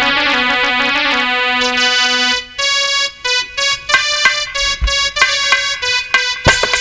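Instrumental music interlude: a sustained melody line at first, then short, separate notes from about two and a half seconds in, with sharp percussion hits near the end.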